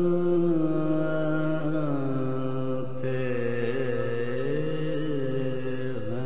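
A man chanting Urdu devotional quatrains (qat'aat) in soz style, drawing out long held notes that slide slowly between pitches.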